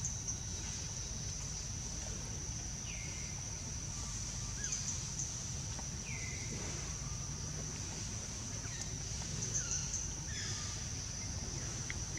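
Forest ambience: a steady high-pitched drone with a low rumble beneath, and scattered short falling chirps, most of them in the second half.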